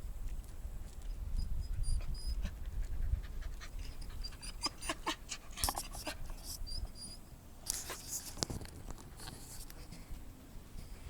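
Hiker moving along a rough forest trail: scattered footstep clicks and brush rustling, over heavy panting breaths and a low rumble, with a few short faint high chirps from birds.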